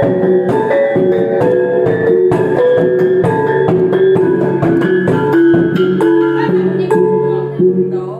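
Iban taboh music played on brass gongs: ringing, pitched gong notes struck in a quick, repeating melody over a steady percussive beat.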